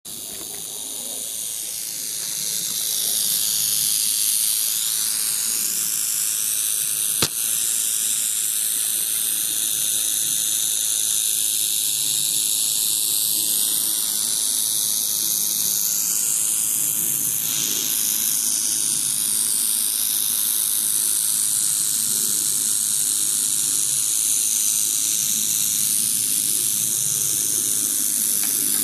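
Rattlesnake rattling its tail without pause: a steady, dry, high-pitched buzz that grows louder over the first few seconds, the snake's defensive warning. A single sharp click about seven seconds in.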